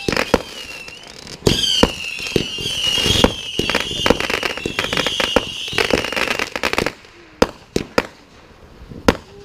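Consumer aerial firework cake firing a rapid barrage of sharp bangs and crackle, with a high wavering whistle over it. About seven seconds in the barrage stops, leaving a few scattered bangs.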